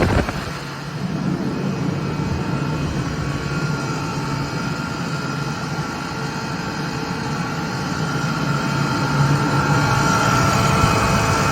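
Atlas Copco GA11 FF 11 kW direct-drive screw air compressor running steadily, a low hum with a high steady whine over it. It grows a little louder after about eight seconds.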